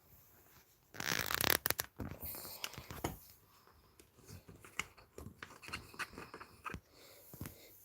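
Product packaging being handled: a loud rustling, crinkling burst about a second in, then scattered clicks and taps of containers being moved.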